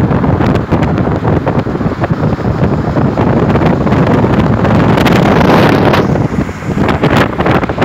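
Loud, uneven wind rushing and buffeting the microphone of a car moving at highway speed, with road noise underneath.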